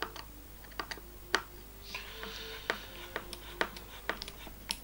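Light, irregular clicks and ticks of a hex driver and small screws being tightened down into an RC car's carbon chassis, about a dozen scattered clicks.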